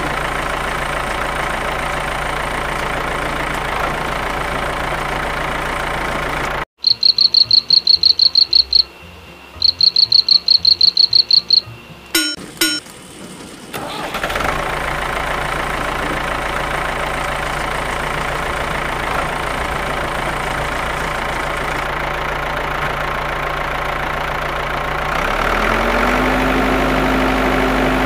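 Tractor engine running steadily, cut off about seven seconds in by two runs of rapid high-pitched beeping and a few clicks, then running again; near the end a low steady tone joins in.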